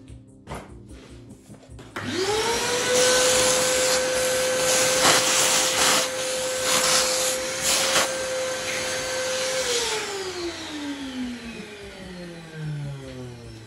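Vacuum cleaner switched on about two seconds in, its motor spinning up to a steady whine as a brush nozzle sucks wood chips out of a chiselled mortise, with a few short rattles as chips are drawn up. It is switched off near ten seconds, the whine falling in pitch as the motor winds down.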